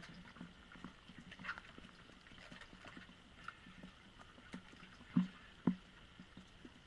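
Faint, scattered taps and knocks of a cave diver's gear against the camera, with two louder knocks about half a second apart some five seconds in.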